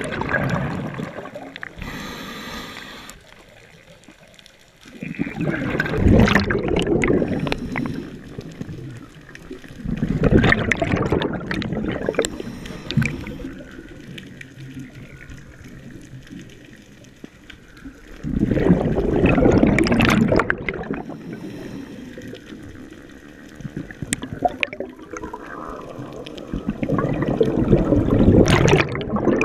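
Scuba diver's regulator breathing underwater: five rushing, gurgling bursts of exhaled bubbles spaced several seconds apart, with quieter stretches between.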